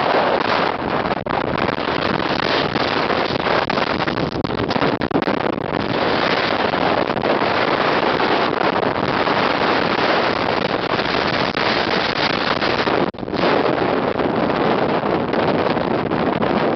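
Strong storm wind buffeting the microphone over the rush of Baltic Sea surf, a dense, steady noise that drops out briefly about thirteen seconds in.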